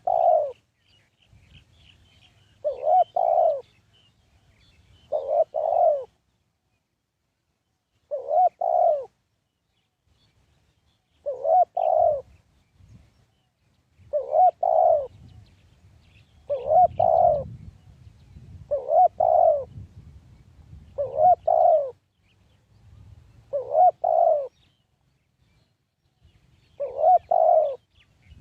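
Spotted dove cooing: a short two-note coo phrase repeated about every two to three seconds, eleven times. Faint high chirps of small birds sound between the coos.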